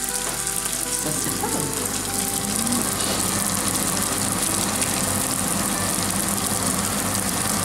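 Deep-frying oil sizzling and bubbling steadily around stuffed bulgur croquettes (içli köfte) as a second one is lowered into the pan.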